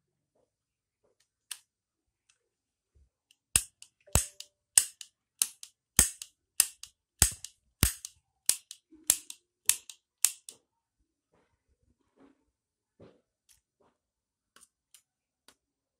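Die-cast metal toy ring cap gun firing a paper-and-plastic ring cap: about a dozen sharp cracks in quick succession, nearly two a second, followed by faint clicks as the gun is handled.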